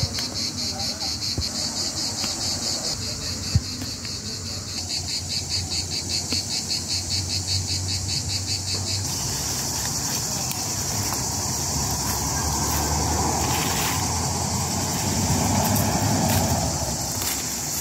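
Insects chirping in a rapid pulsing rhythm, which changes about halfway through to a steady high buzz. There is one short click in the first few seconds.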